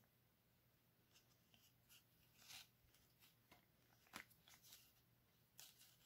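Faint rustling and light ticks of a folded paper booklet and its cotton twine being handled as the string is unwound, a scatter of short scrapes with the sharpest about four seconds in.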